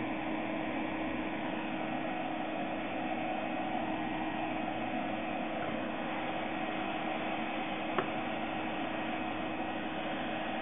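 Steady mechanical fan noise, an even hiss with a low hum under it, and a single click about eight seconds in.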